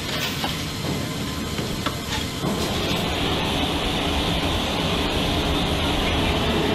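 Steady mechanical rumble and hiss of flight-line machinery, with a few light metallic clicks in the first two seconds. About two and a half seconds in it steps up to a louder, even roar, as an aircraft tow tractor pulls a helicopter.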